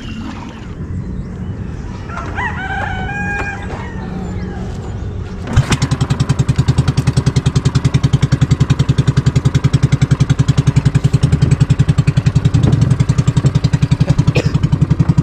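A rooster crows about two seconds in; then, about five and a half seconds in, a small boat engine starts abruptly and runs with a loud, fast, even thump.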